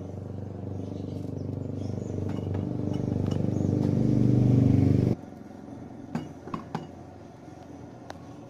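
A vehicle engine running, growing steadily louder for about five seconds and then cutting off abruptly. It is followed by a few light clicks and clinks.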